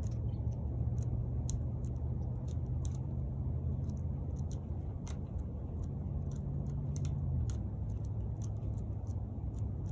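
A steady low motor hum, like an engine running, which drops a little in pitch about seven and a half seconds in. Faint, irregular short ticks sound over it.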